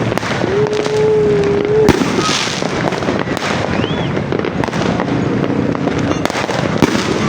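New Year fireworks going off in dense crackling with repeated sharp bangs, the loudest about two seconds in and near the end. A steady held tone sounds over the crackle for about a second and a half early on.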